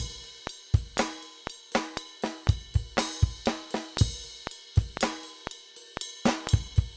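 Sampled acoustic drum kit from Kontakt's factory library, played from a keyboard: kick, snare and hi-hat in a funky groove.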